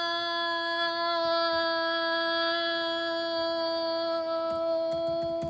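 A single steady musical note with overtones, held unchanging in pitch throughout.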